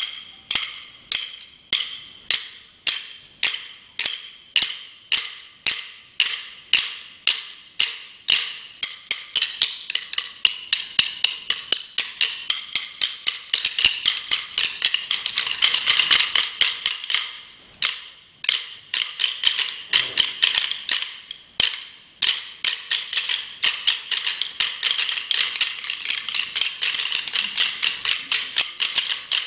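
Wooden drumsticks clicked together by a percussion ensemble: a steady beat of about two clicks a second that thickens into interlocking rhythms from about eight seconds in, with a couple of short breaks about two-thirds of the way through.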